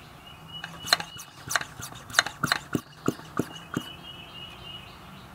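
Hand vacuum pump being squeezed about ten times in quick succession, roughly three strokes a second, each stroke a sharp click, drawing vacuum on a Ford F-150's IWE (integrated wheel end) hub actuator to test whether it holds vacuum.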